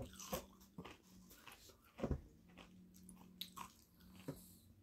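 Potato chips being bitten and chewed, faint scattered crunches with a stronger one about two seconds in, over a faint steady hum.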